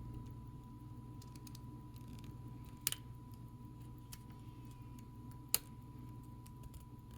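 Small metal tools clicking on a mechanical watch movement as its tiny threaded screws are taken out. There are a few faint ticks and two sharper clicks, the first about three seconds in and the second under three seconds later.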